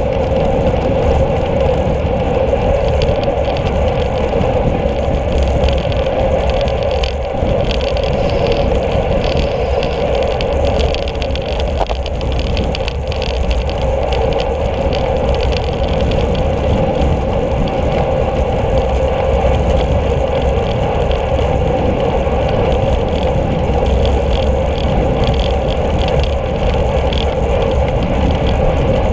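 Steady wind and road rumble from a camera mounted on a road bike's handlebars while riding on asphalt. The noise is loud and constant and does not change.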